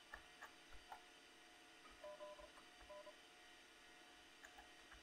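Near silence, with a few faint clicks in the first second and, about two seconds in, several short faint two-tone electronic beeps.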